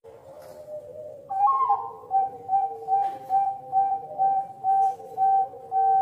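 A bird whistling one clear note over and over in quick even pulses, about two and a half a second, after a louder opening note that rises and falls about a second in.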